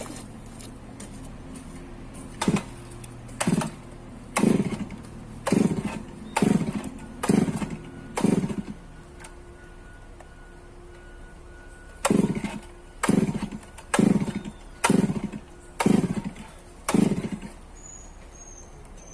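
Two-stroke chainsaw engine running, its throttle blipped in short revs about once a second, each rev falling back to idle, in two runs of six or seven blips with a pause between. A few short high chirps near the end.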